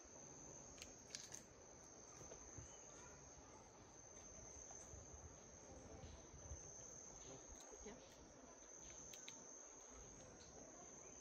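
Faint, steady high-pitched drone of insects, with a few short ticks and chirps over it.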